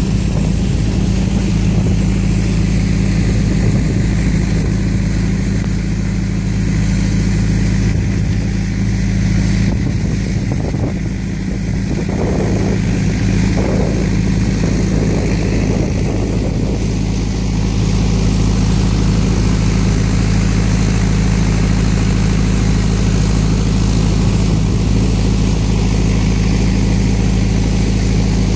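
Steady low mechanical drone, like an engine idling, unchanging throughout, with a little extra rattly noise a third of the way in.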